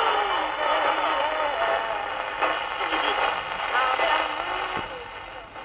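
Unitra Eltra Donald MOT-763 pocket radio playing Polish Radio Program 1 received on long wave: a voice from the broadcast over a steady hiss of static, through the set's small speaker. The sound dies away near the end.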